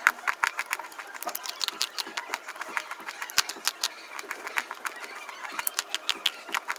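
An animal chewing crunchy food: rapid, irregular crunches, several a second.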